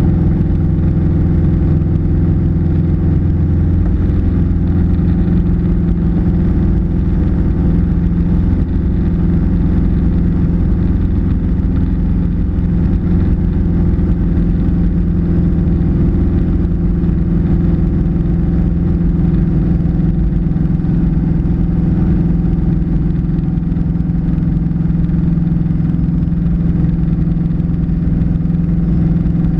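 Single-engine light aircraft's piston engine and propeller droning steadily, heard from inside the cockpit in flight.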